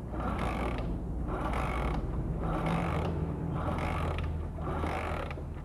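Hero Splendor single-cylinder engine kicked over repeatedly with its spark plug out, about one kick a second, with ratcheting and clattering from the kick-start and valve gear over a steady low hum. It is being turned without firing to find where a rattling engine noise comes from.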